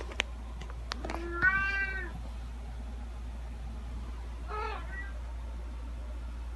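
Domestic cat meowing: a loud, drawn-out meow about a second and a half in, then a shorter, quieter meow a few seconds later. A few sharp clicks come just before the first meow, over a steady low hum.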